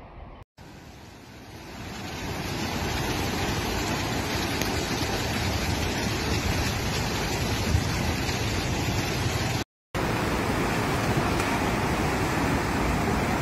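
Fast-flowing floodwater rushing, a steady noise that builds over the first couple of seconds. It breaks off briefly about half a second in and again about ten seconds in.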